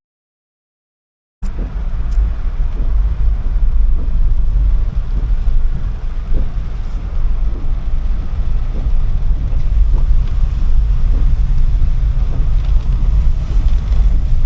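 Car cabin noise while driving through heavy rain: a steady low rumble of the car and its tyres on the wet, flooded road, with a hiss of rain over it. The sound is cut out completely for about the first second and a half.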